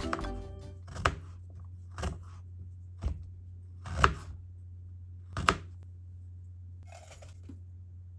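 A kitchen knife chopping on a cutting board: five separate cuts about a second apart, the fourth the loudest, with a short rustle near the end.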